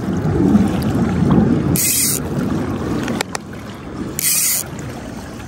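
Pontoon boat oars stroking through the water, a short splashy swish about every two seconds, over a steady low rumble. A click comes about three seconds in, and the rumble then drops off.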